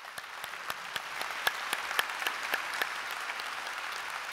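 Large audience applauding: a dense spread of hand claps with some single sharp claps standing out, rising over the first second and then holding steady.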